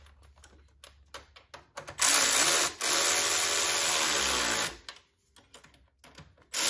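Cordless electric ratchet driving a nerf bar mounting bolt, running in two bursts about two seconds in: a short one, then a longer one whose pitch falls near its end as the bolt draws tight. Light clicks and taps of the tool on the hardware before and after, and the motor starts again at the very end.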